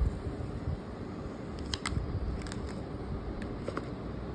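Faint rustles and a few light clicks of paper packaging being handled, as the paper wrap is peeled off a new iPhone 13 and the paper inserts are lifted from its box.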